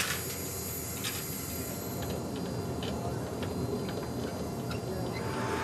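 Scattered light clicks and clinks of steel tie-down chains being handled on a metal cargo-hold floor, over a steady low hum. A steady high whine comes in near the end.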